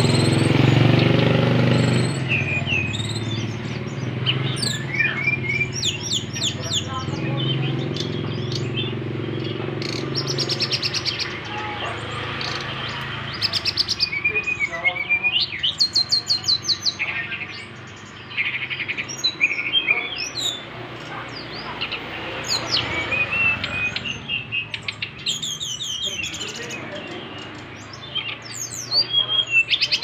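Caged brown-chested jungle flycatcher singing continuously: a varied song of short whistled slurs and rapid trills of repeated notes, in phrases with brief pauses between them.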